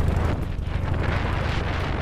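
Chang Jiang CJ750 sidecar motorcycle's flat-twin engine running, a steady low rumble of rapid firing pulses.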